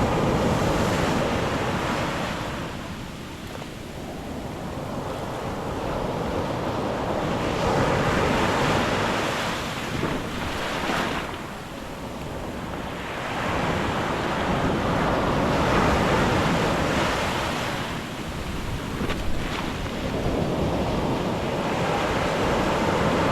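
Black Sea surf breaking on a beach: a steady wash of water that swells and ebbs in slow surges, one roughly every six to eight seconds.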